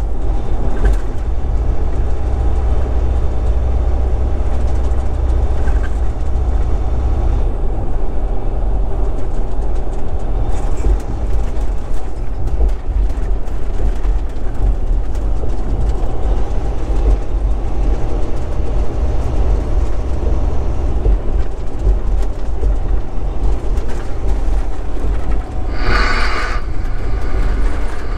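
Road noise inside the cab of a Volvo 780 semi truck driving at highway speed over rough, patched concrete interstate: a loud, steady low rumble with the bumping and rattling of the rough pavement. A brief higher-pitched hiss sounds about two seconds before the end.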